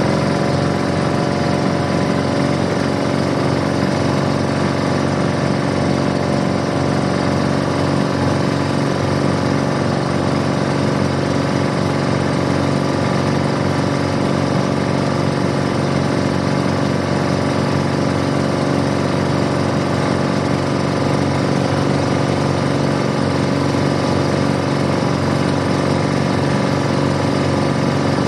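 Boat engine running steadily at a constant speed, a loud, even drone with a rattling, chugging edge.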